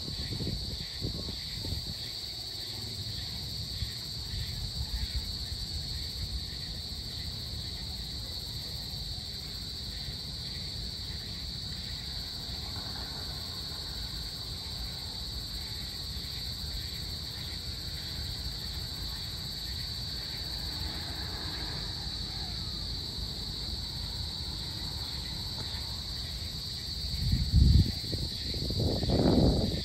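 Steady high-pitched chorus of insects over a low rumbling background. Near the end a louder low rumble swells twice and fades.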